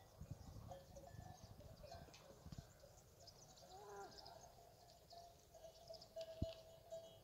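Near silence: faint bird chirps, with a short animal call about four seconds in and faint low rumbles on the microphone in the first seconds.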